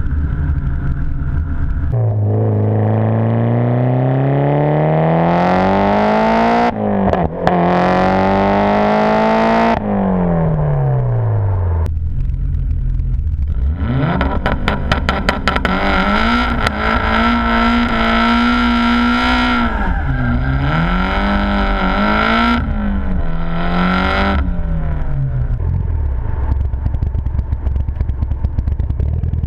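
Mitsubishi Lancer Evolution's turbocharged four-cylinder engine accelerating hard, its pitch rising through the gears with brief breaks at the shifts. It drops back twice as the car slows, once about ten seconds in and again near the end.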